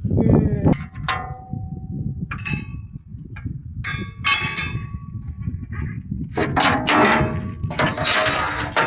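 Several sharp metallic clanks, each ringing on briefly as metal parts strike one another, over a low steady rumble; in the last couple of seconds, dense scraping and rattling.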